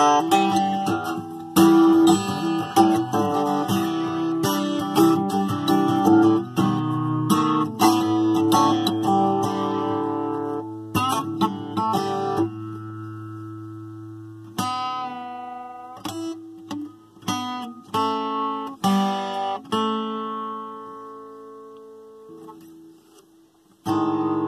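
Acoustic guitar played in a car's cabin: steady strumming for about the first twelve seconds, then slower, sparser chords and picked notes left to ring out and fade, with one strong chord struck just before the end.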